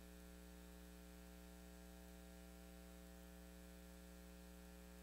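Near silence: a faint, steady electrical hum of unchanging tones.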